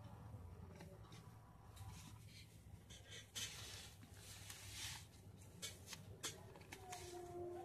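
Faint handling noises, scattered scratches and small clicks as hands work a USB amplifier panel and its open chassis, over a low steady hum.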